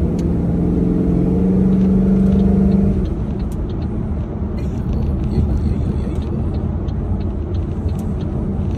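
Car engine and road noise heard inside the cabin while driving. A steady engine note is louder for about the first three seconds, then drops back to a low, even road rumble.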